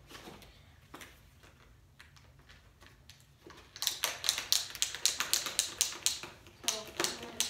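Snowboard binding ratchet straps being worked by hand: a quick run of sharp clicks, several a second, starting about halfway through and going on for about three seconds.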